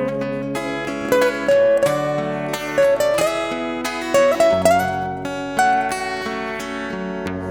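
Instrumental acoustic band music: plucked acoustic guitar with a sliding melody line above it.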